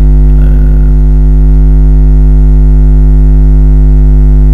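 Loud, steady electrical mains hum with its buzzy overtones, picked up in the recording.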